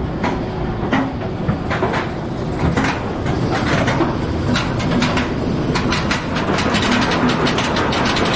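B&M dive coaster train rolling out of the station and onto its lift hill, a steady rumble with irregular clicks and rattles that come faster and closer together in the second half as the train starts to climb.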